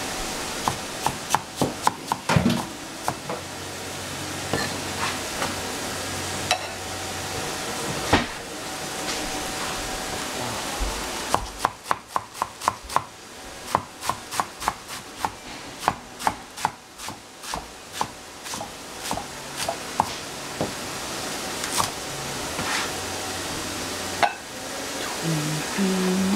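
Chinese cleaver chopping napa cabbage on a cutting board: sharp knocks of the blade through the leaves onto the board. The strokes are scattered at first, with a run of rapid chops at about four a second in the middle.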